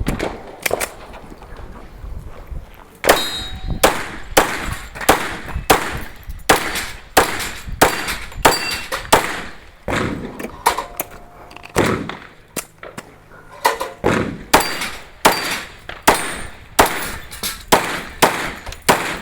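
A steady string of about twenty gunshots, roughly one every two-thirds of a second, with some shots followed by the ring of hit steel targets. The string breaks for about two seconds past the middle, then carries on.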